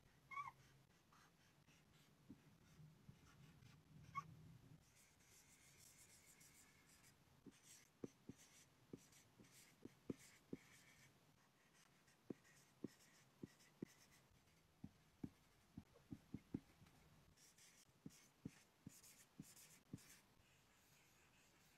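Faint sound of felt-tip markers writing on a white board: soft hissing strokes broken by many sharp taps as the tip lands on the board, with a couple of short squeaks of the tip early on.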